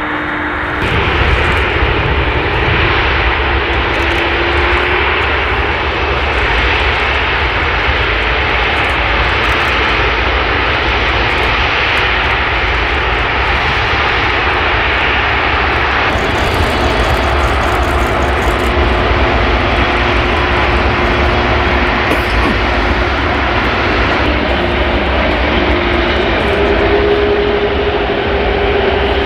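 Airbus A380 jet engines (Rolls-Royce Trent 900 turbofans) running loudly as the airliner rolls along on the ground. The steady jet roar has a deep rumble and a faint whine that rises a little in pitch near the end.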